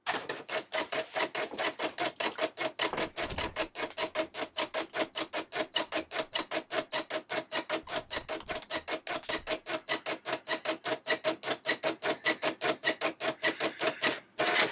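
Epson FX-80 nine-pin dot-matrix printer printing slowly, its print head firing in short, even bursts about five or six times a second over a steady tone, as it prints a heading in reversed characters. Near the end the bursts grow louder and closer together.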